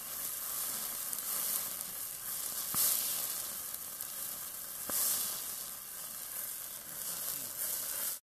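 Hot wax fire burning with a steady sizzling hiss, flaring louder with a sharp crack about three seconds in and again about five seconds in. The sound cuts off abruptly near the end.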